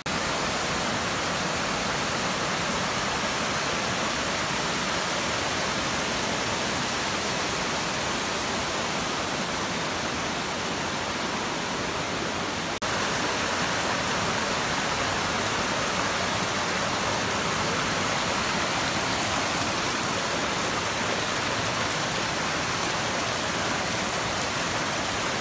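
Steady rush of a small waterfall and cascading stream tumbling over rocks, with a brief dip about halfway through.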